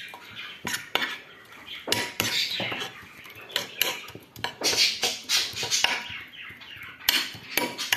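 A spoon clinking and scraping against a bowl while a wet soapy mixture is stirred, in irregular clicks.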